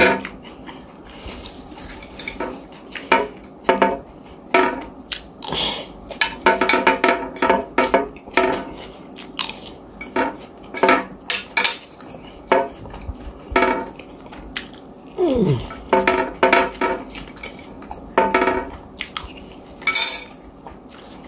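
A plastic spoon scraping and tapping against a plate to gather the last of the rice: a long series of short, squeaky scrapes, one of which slides down in pitch about two-thirds of the way through.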